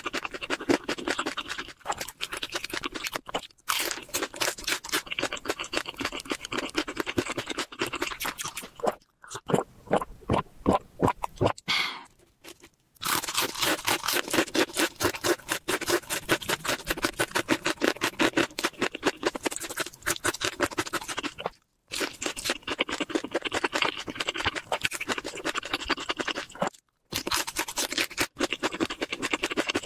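Close-miked chewing of crispy fried chicken: a dense, rapid crackle of crunching batter crust, broken by a few brief pauses.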